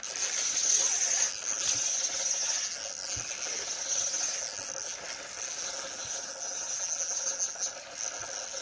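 Fishing reel's drag buzzing steadily as a hooked mulloway pulls line off against it.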